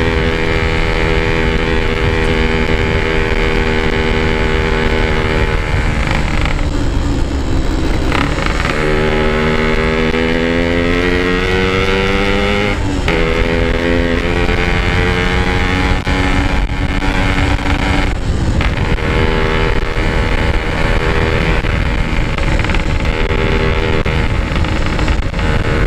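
Yamaha RX-King 135 cc two-stroke single running under way through its stock-style packed exhaust. About seven seconds in the throttle is eased off, then the engine pitch climbs steadily as it accelerates. It drops abruptly at a gear change, and there is another short break a few seconds later.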